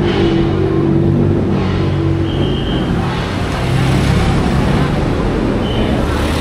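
Street traffic: motor vehicle engines running close by, with two brief high tones, one about two and a half seconds in and another near the end.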